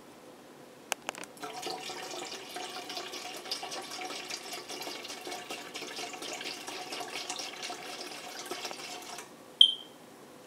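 Apple cider vinegar pouring from a bottle in a steady stream into a stainless steel mixing bowl that already holds liquid, splashing for about eight seconds before the pour stops. Just after it stops there is one sharp, ringing clink.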